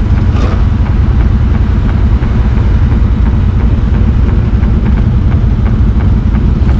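ATV engine running steadily with a loud, low, fluttering rumble.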